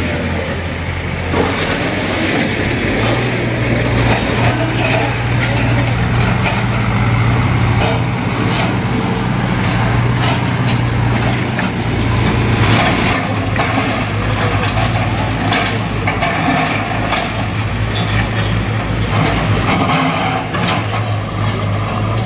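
Diesel engines of backhoe loaders running steadily under load, the engine note picking up slightly about three seconds in, with scattered knocks and clatter of brick rubble as a building is knocked down.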